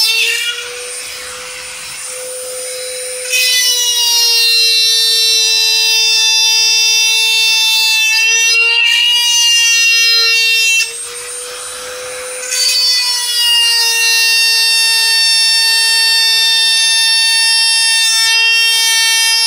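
Dremel rotary tool with a drill bit running at a steady high-pitched whine as it cuts around the old spark plug tube gasket in a plastic valve cover. The whine turns quieter and hissier twice for a couple of seconds, about a second in and about eleven seconds in.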